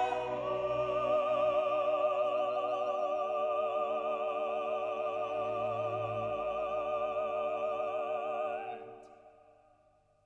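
Operatic music: a singer holds one long note with vibrato over sustained orchestral chords, then the music ends and fades away about nine seconds in.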